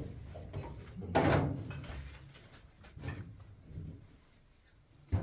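A few knocks and thumps. The loudest is about a second in, a weaker one comes near three seconds, and a sharp one comes just before the end.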